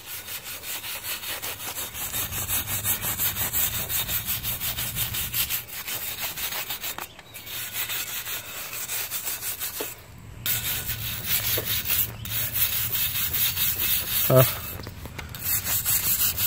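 Small steel wire brush scrubbing rust off a cast iron weight plate: quick back-and-forth scraping strokes, about four a second, with a few short pauses.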